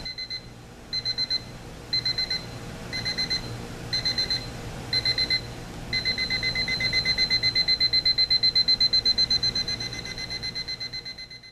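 TimeWise Oxford Collection alarm clock sounding its 4-beep ascending electronic alarm: high-pitched beeps in short groups about once a second. About six seconds in it switches to continuous rapid beeping that grows louder, then cuts off at the end.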